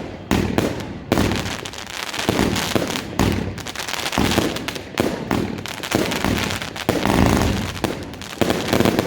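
An 80-shot compound firework cake firing shot after shot, roughly one sharp launch thump a second, with some in quick pairs. Each thump is followed by dense crackling from the bursting shells.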